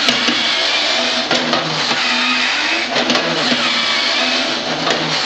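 Battery-powered 1962 Ideal Gaylord basset hound toy walking backwards: its electric motor and gearbox whirring with a clatter that repeats about once a second.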